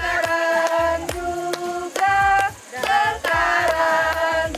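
A group of people singing a birthday song together, with hand claps keeping the beat.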